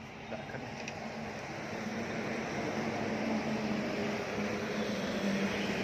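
A motor running with a steady low hum and hiss, growing gradually louder.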